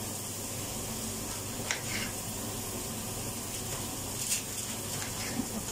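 Kitchen knife slicing through an eggplant onto a cutting board: a few short, soft cuts over a steady background hiss.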